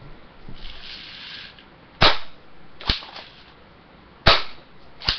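Cx4 Storm airsoft BB gun fired twice, about two seconds apart. Each sharp shot is followed less than a second later by a softer crack.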